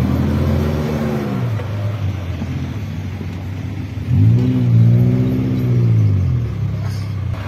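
Suzuki Jimny 4x4 engines revving on a dirt trail: the engine note rises and falls twice, briefly at the start and again, louder and longer, from about four seconds in.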